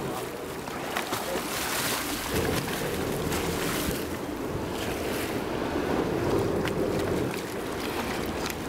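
Sea water splashing and sloshing against the side of the boat as a hooked sailfish thrashes at the surface, with wind buffeting the microphone.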